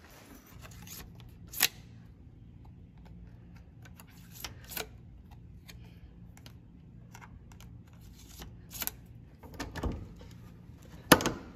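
A few sharp, separate clicks and knocks, the loudest near the end, over a low steady hum.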